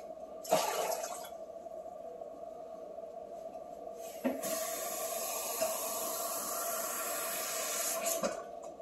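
Water running from a kitchen tap to fill a measuring cup: a short rush of water about half a second in, then a steady stream for about four seconds from around four seconds in, stopping just after the eighth second.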